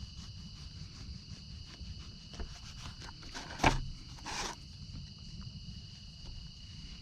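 Insects trilling steadily in the woods. A single sharp knock comes about three and a half seconds in, followed by a brief rustle.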